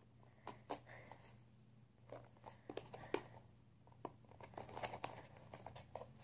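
Cardboard box of a Google Cardboard V2 viewer being handled and pushed at by hand: faint scattered scrapes, rubs and taps of cardboard, the sharpest about three seconds in.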